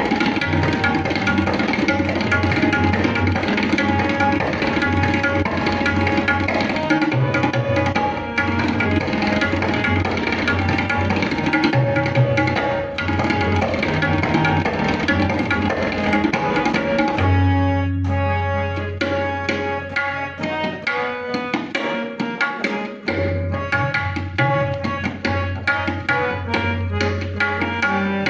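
Tabla solo in teentaal, dense fast strokes on the tabla and booming bayan, over a harmonium repeating the lehra melody. About two-thirds of the way through the playing opens out into more separate strokes with long held bass tones from the bayan, and the harmonium line stands out more clearly.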